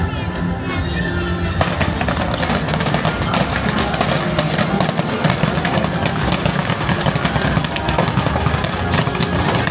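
Fireworks show soundtrack music with heavy drums, over the rapid pops and crackles of fireworks bursting. The music's held chords give way about a second and a half in to a dense run of crackling.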